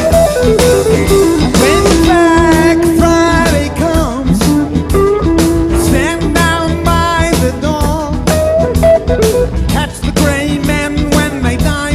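Rock music with electric guitar lines, bass and drums and a steady beat, possibly with a voice.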